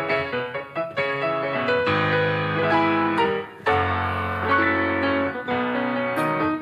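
Instrumental music led by a piano, playing a passage of chords and melody notes without singing.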